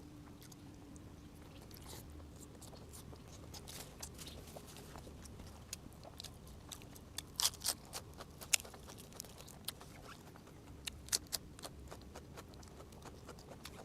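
Close-miked eating sounds: a person chewing steamed egg-filled squid, with irregular mouth clicks and smacks, a few louder ones about halfway through.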